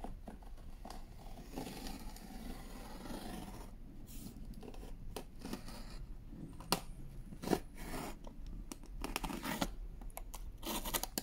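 Craft knife slitting clear packing tape along a cardboard box's seam: scraping and tearing of tape and cardboard, with a run of sharp clicks in the middle and denser crackling near the end.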